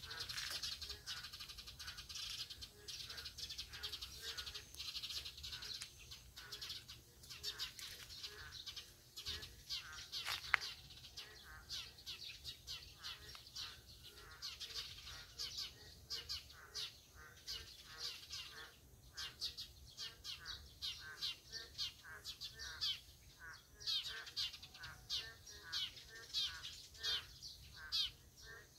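Chorus of boreal digging frogs (Kaloula borealis) calling, many short calls repeating and overlapping. A single sharp click comes about ten seconds in.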